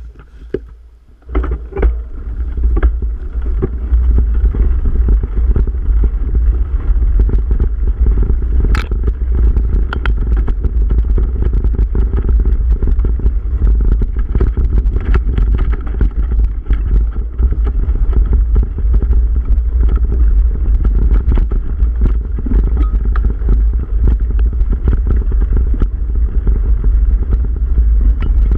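Wind rumbling on a bike-mounted camera's microphone as a mountain bike rides down a dirt singletrack, with the frame and parts rattling and clicking over the bumps. It starts about a second in as the bike gets going.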